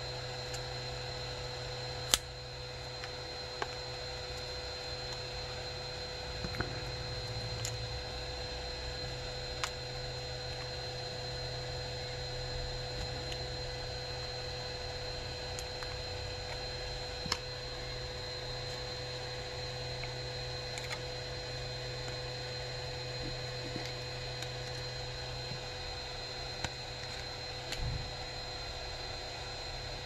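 Steady electrical hum and hiss with a faint high tone, broken by scattered sharp clicks and taps of a prying tool and card against a Nokia 7.2's back cover, the loudest about two seconds in.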